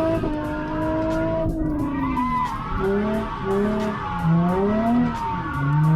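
Nissan 350Z V6 engine revving through a drift, the revs swinging up and down, several quick rises and drops in the second half, with tyres skidding. The car runs a 3.9 differential, which keeps the engine high in the rev range in second gear.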